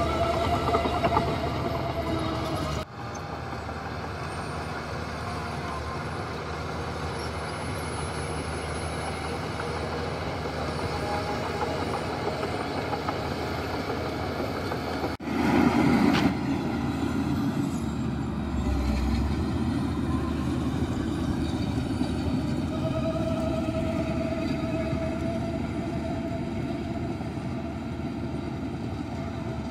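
Heavy diesel earthmoving machinery running steadily. The sound breaks off abruptly about three seconds in and again about fifteen seconds in, with a louder surge of engine noise right after the second break.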